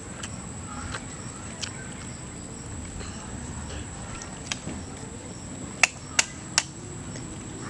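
Sharp clicks of cooked giant African snail shells being handled and knocked together, with three loud clicks in quick succession near the end, over a steady high-pitched whine.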